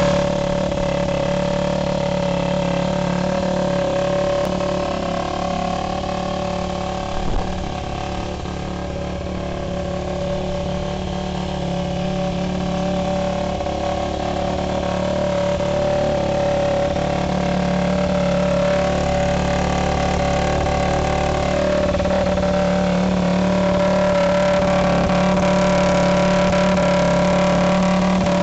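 2007 Yamaha YZ250F's single-cylinder four-stroke engine idling steadily through an aftermarket silencer, with a brief knock about seven seconds in.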